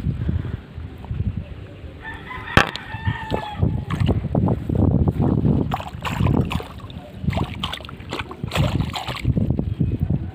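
A rooster crows once, about two seconds in, a slightly falling call of roughly a second and a half. A sharp knock lands during the crow, and irregular bumping and rustling follows for several seconds.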